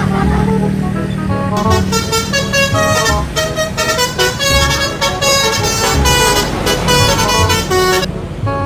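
Telolet bus air horns playing a quick tune of short notes, starting about a second and a half in and stopping near the end, over music with a steady thumping beat.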